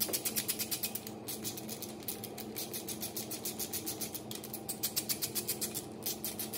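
Hand ratchet clicking rapidly as it spins ARP rod nuts down the connecting-rod bolts of an A-Series engine, spreading the thread lubricant before the nuts are nipped up. The clicks come in quick runs of about nine or ten a second, with short breaks between strokes.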